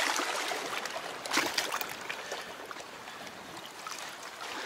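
Small sea waves lapping and trickling against the rocks of a stone causeway, a little louder near the start and again about a second and a half in, then settling.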